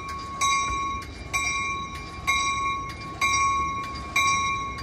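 Train bell ringing at a steady pace of about one stroke a second, each stroke ringing on, as an Amtrak California train led by cab car 8306 pulls slowly out. The train runs with a low rumble underneath.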